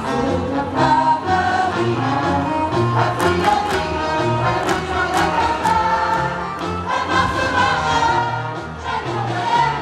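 Portuguese marcha popular music: a band playing while a group sings the marcha in chorus, with sharp percussion hits in the middle.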